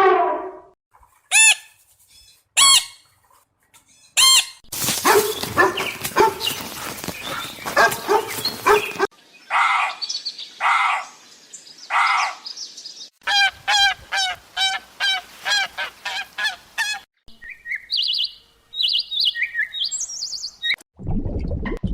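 Bird calls from several different birds in turn: a few short upswept chirps, then a stretch of noisy calling, a rapid run of repeated calls, and high chirps near the end.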